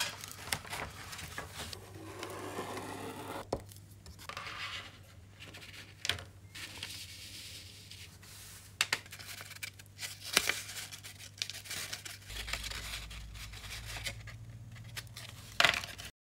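Sheet material being handled, scraped and torn, with rustling, a few sharp clicks, and a steady low hum underneath that a deeper hum joins about three-quarters of the way through.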